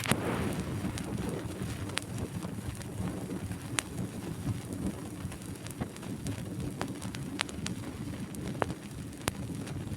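Vinyl LP surface noise in the lead-in groove before the track starts: steady crackle and hiss with scattered sharp pops and clicks.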